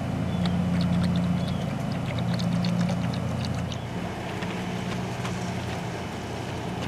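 Liquid wash soap is poured into a bucket of water, giving scattered dripping, splashing ticks for the first three seconds or so. A chenille microfiber wash mitt is then wiped over a wet truck fender. A steady low mechanical hum, like a motor running, goes on underneath throughout and is the loudest thing heard.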